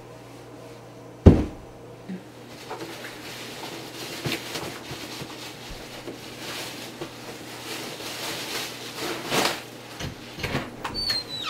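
A sharp thump about a second in, then a white plastic garbage bag crinkling and rustling as it is gathered and lifted out of a kitchen trash bin.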